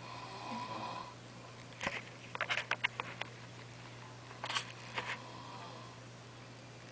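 A sleeping person's noisy snoring breath: a thin whistling tone for about a second, then a run of short crackling, clicking noises about two seconds in and another brief cluster near five seconds.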